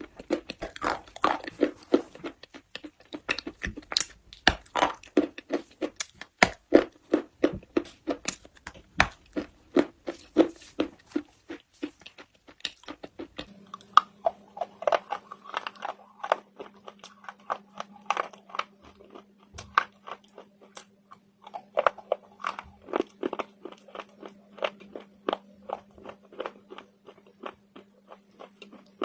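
Close-miked crunching as hard pieces of slate are bitten and chewed, a dense run of sharp cracks and crackles. About halfway through, a steady low hum comes in beneath the crunching.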